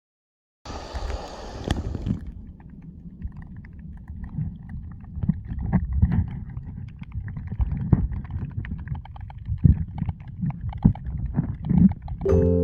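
Muffled water sloshing around a phone sealed in a waterproof pouch: a short splash about a second in, then a low rumble with scattered knocks and clicks. Music comes in near the end.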